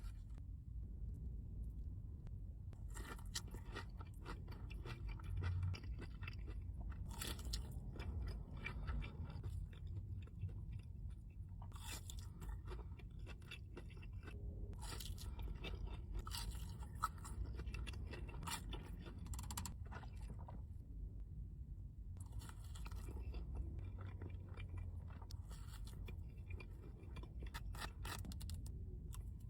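Close-up crunching and chewing of crispy food, in bouts of a few seconds separated by short pauses, over a steady low hum.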